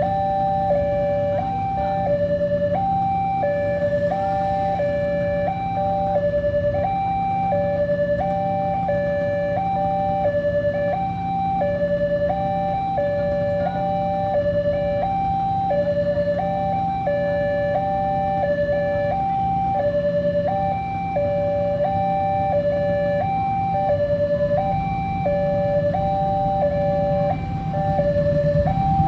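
Railway level-crossing warning siren sounding a steady two-tone high-low alternation, switching pitch about every 0.7 s, the signal that a train is approaching. A steady low hum runs underneath.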